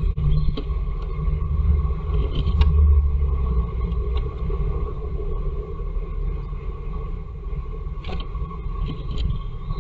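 Steady low rumble with a faint steady tone over it, and a few sharp taps and scrapes as a tit's claws and beak hit the wood of the nest box.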